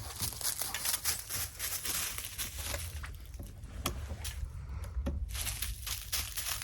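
Irregular rustling and scraping with scattered small clicks, the noise of hands working an object, over a steady low wind rumble on the microphone.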